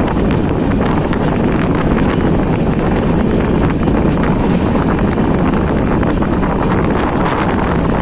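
Wind buffeting the microphone from a moving passenger train's window, over the steady rumble of the train running along the track. The noise is loud and unbroken, with no clear pattern of wheel clicks.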